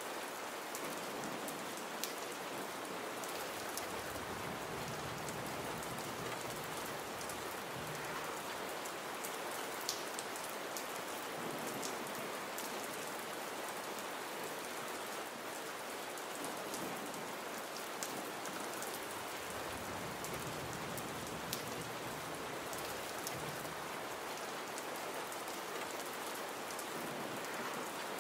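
Steady, gentle rain falling, with single drops ticking sharply now and then.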